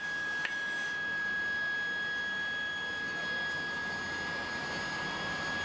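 Steady rushing of air blown into a coal forge fire, with a constant high whine over it. There is one sharp click about half a second in.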